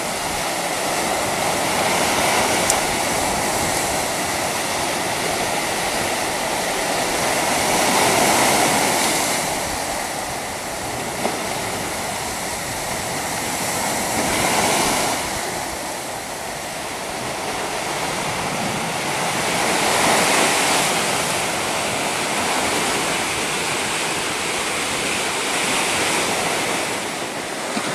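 Sea surf: small waves breaking and washing onto the shore, the rush swelling and easing about every six seconds.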